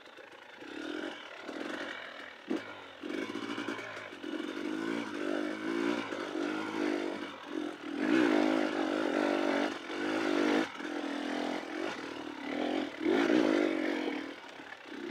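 Dirt bike engine revving up and down as it is ridden, its pitch rising and falling with each throttle burst, getting louder about halfway through. A few short knocks and clatter are mixed in.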